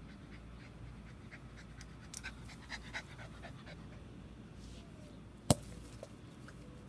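Small Corgi–Chihuahua mix dog panting, with scattered small clicks and one sharp click about five and a half seconds in.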